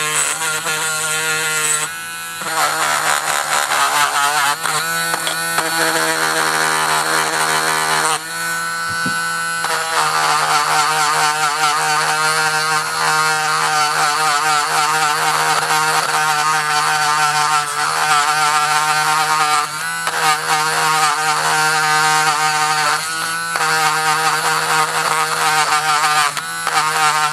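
Dremel rotary tool running at high speed against the steel of a hatchet head, grinding off the remaining rust. Its whine wavers in pitch as the bit is pressed on and eased off, with brief dips about two, eight and twenty seconds in.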